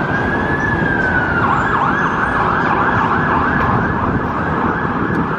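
Emergency vehicle siren: a slow wail rises and holds, then about a second and a half in switches to a fast yelp of about three sweeps a second. Street traffic rumble sits underneath.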